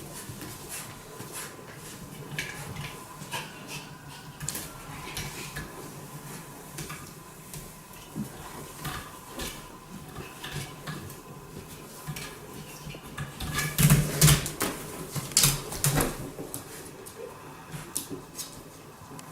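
Irregular clicks, knocks and clatters of hard objects being handled and knocked together, loudest about fourteen to sixteen seconds in.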